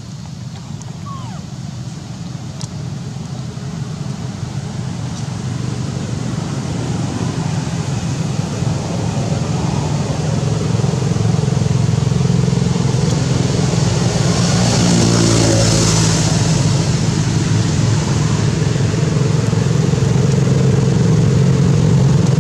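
A motor vehicle engine running, a steady low hum that grows louder through the first half and then holds, with a rush of hiss about two-thirds of the way in as it comes closest.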